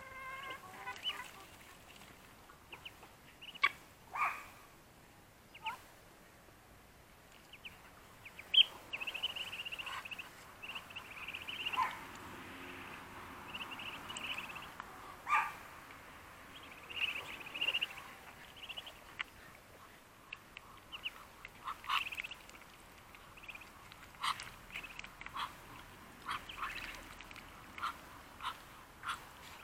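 Two-week-old Muscovy ducklings peeping, short high-pitched calls coming on and off, with a few sharp clicks between them.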